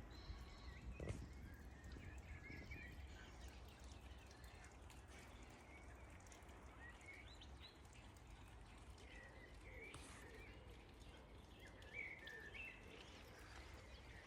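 Faint birds chirping now and then over a low, steady outdoor rumble.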